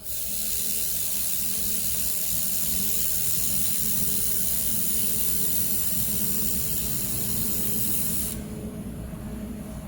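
Handheld laser welder running a wire-fed weld on stainless steel: a steady hiss of gas and welding that starts abruptly and cuts off suddenly after about eight seconds when the trigger is released. A steady machine hum runs underneath.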